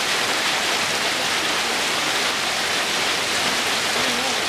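Heavy rain pouring down in a steady, even hiss as it hits the grass and the flooded ground.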